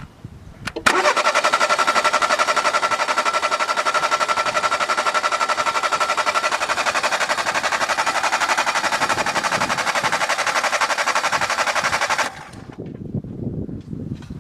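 Starter motor cranking a car engine for about eleven seconds without it firing, a fast, even pulsing that begins about a second in and cuts off near the end. This is a cylinder compression test: the engine is turned over with a compression gauge in one spark-plug hole, and the reading comes out at a little over 9.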